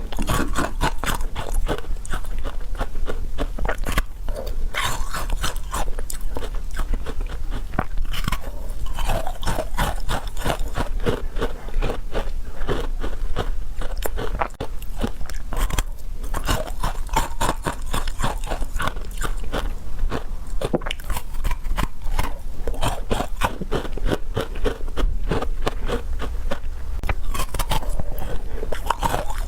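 Close-miked eating: crunchy bites and chewing, with dense crackling clicks that run on without pause.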